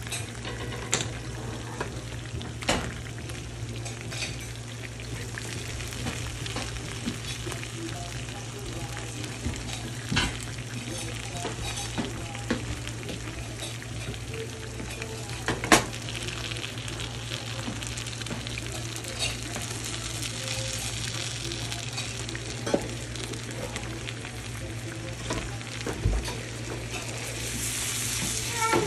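Salmon pieces sizzling as they fry in melted butter in a nonstick pan, with scattered clicks and taps from the tongs handling them; the sharpest click comes a little past halfway. A steady low hum runs underneath.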